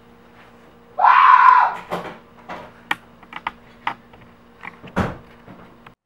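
A short, loud scream about a second in, followed by a run of light knocks and clicks, over a steady low hum.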